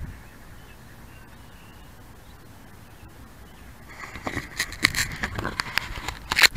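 A low steady background for the first few seconds, then a run of clicks, scrapes and rustles starting about four seconds in, with a sharp click near the end as the loudest. This is handling noise from a keychain camera being moved by hand.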